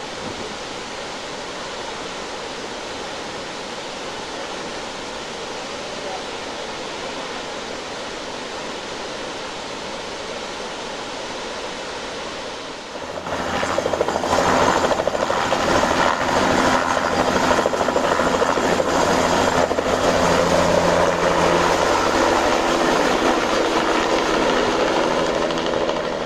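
Victoria Falls' steady roar of falling water. About halfway through it cuts to a louder turbine helicopter, its engine and rotor holding steady tones with a fast beat from the blades, as it runs up and takes off near the end.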